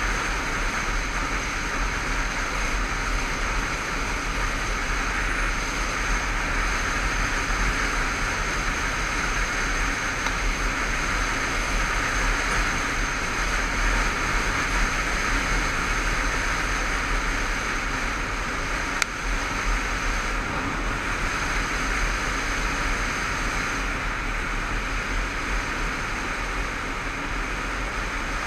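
Steady rush of wind over the camera microphone on a moving Honda CBF500 motorcycle, with low buffeting rumble and the bike's engine running faintly underneath. There is one sharp click about 19 seconds in.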